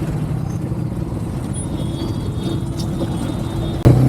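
Motorcycle engine running steadily while riding, with traffic noise around it. Just before the end a sudden knock, after which the sound is louder.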